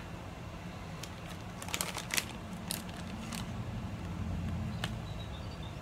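A few light clicks and taps of a small cosmetic package being handled and turned over, a short cluster about two seconds in and single ones later, over a steady low hum.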